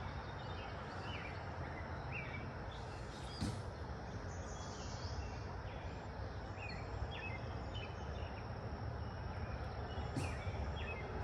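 Steady wind buffeting the microphone, a low rumbling hiss, with a few short, faint bird chirps over it.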